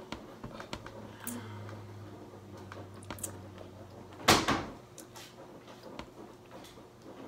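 Small clicks and handling sounds of eating at a table over a low steady hum, with one loud thump about four seconds in.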